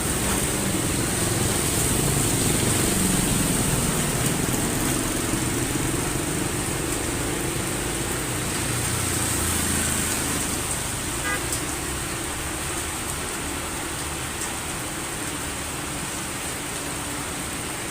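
Heavy rain falling as a steady hiss, with a motor vehicle's engine running close by for the first two-thirds, then fading away.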